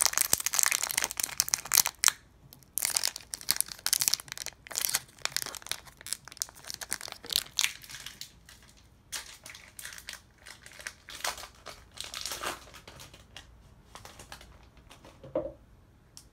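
Foil Pokémon booster pack wrapper crinkling in irregular bursts as it is opened and handled, dense at first and sparser near the end.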